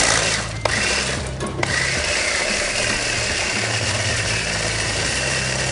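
Electric mini food chopper running, its blade grinding fried cassava chips into crumbs for a coating. The motor runs steadily, with two brief breaks in the first couple of seconds.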